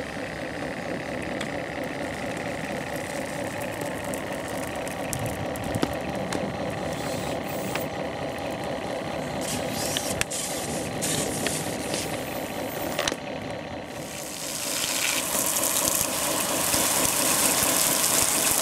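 Flames burning from model oil barrels, with a few sharp crackles and pops. About fifteen seconds in, a louder steady hiss starts as a yellow pressurised cylinder vents a jet of spray.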